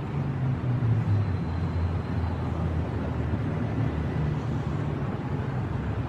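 Passenger jeepney engine running steadily with a low rumble and road noise, heard from inside the vehicle.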